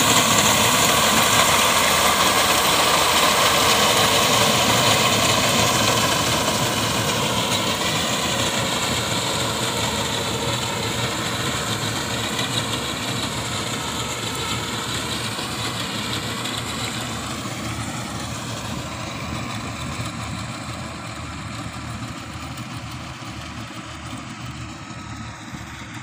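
Tractor's diesel engine running under load as it drives a front-mounted reaper cutting wheat. The sound fades steadily as the tractor moves away.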